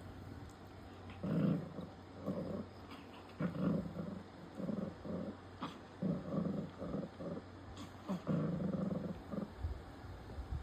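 A dog growling in a run of short, low growls one after another, the last one drawn out longer.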